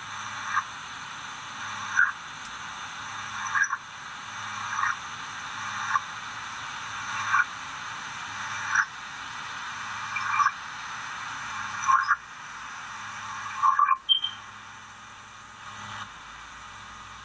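Odd screeching noise from Skype's audio output: a raspy, croak-like sound that swells and ends in a sharp chirp about every second and a half, repeating ten times. It stops about 14 seconds in, leaving a steady hiss.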